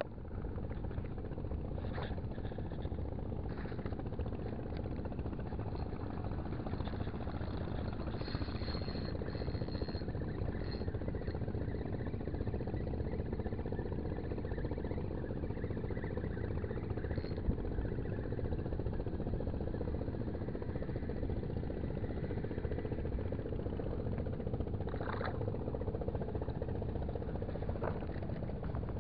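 Steady low drone of an idling engine, with a few faint clicks.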